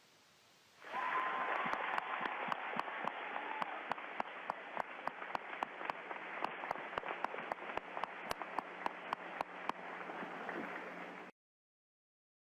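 Crowd applauding, with sharp individual claps standing out a few times a second; it starts about a second in and cuts off abruptly near the end.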